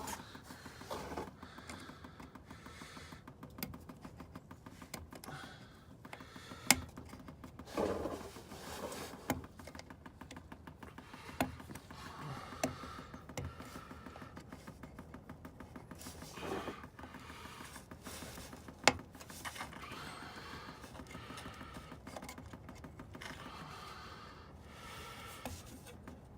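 Scattered sharp clicks and scraping of a small tool against the fuel filter housing stem as an old seal is pried off, with quieter handling noise between.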